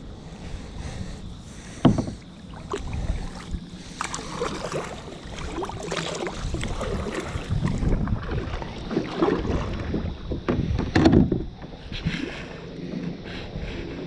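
A kayak on the water: paddle strokes splashing, with irregular knocks against the hull, two of them much louder, about two seconds in and near eleven seconds.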